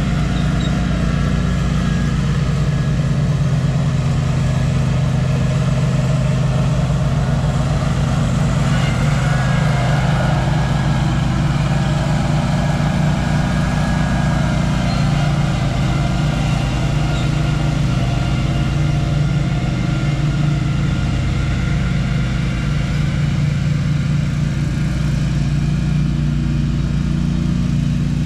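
Small engine of a lawn-care machine running steadily at an even speed.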